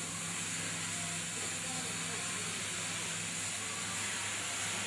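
A steady hiss with a faint low hum underneath, and no distinct knocks or handling sounds.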